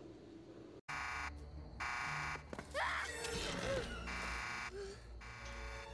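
Electronic warning alarm buzzing in repeated blasts of about half a second to a second, with a voice calling out over it: the fence alarm warning that the electric fence's power is coming back on, from the film's soundtrack.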